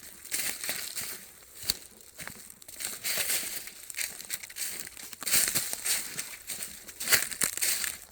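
Footsteps crunching through dry fallen leaves on a hiking trail, an uneven run of crackling steps.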